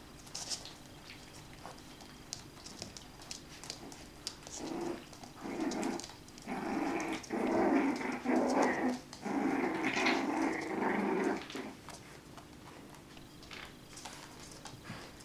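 Havanese dog growling in a run of short, rough growls, starting about four seconds in and lasting about seven seconds. Light clicks of paws on a hard floor before and after.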